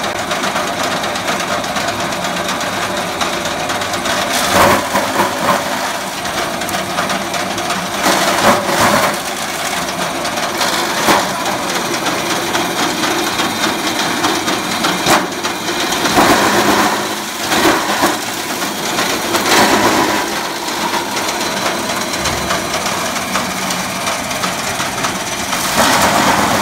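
Small electric-motor-driven chaff cutter running steadily, with several short louder surges of crunching as dry stalks are fed in and chopped.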